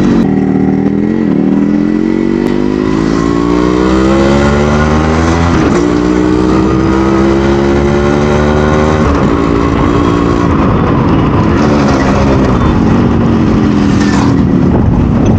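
Yamaha RX100's two-stroke single-cylinder engine pulling the bike along, its pitch climbing steadily for about eight seconds as it accelerates, then easing off and running lower.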